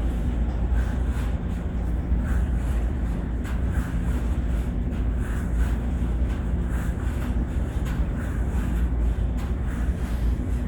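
Laundromat machines running: a steady low rumble with a faint hum, as of tumble dryers turning.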